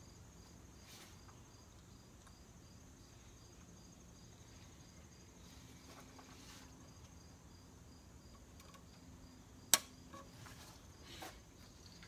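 Faint, steady chirping of crickets, an evenly pulsing high trill, with one sharp click near the end.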